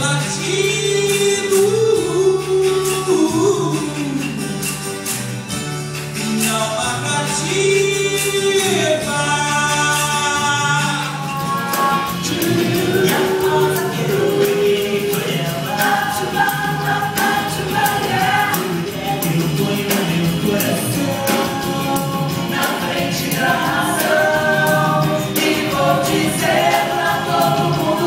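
Live pop-rock band music with electric guitars, bass and a tambourine, backing singing. A single lead voice in the first part gives way to several voices singing together from about halfway through.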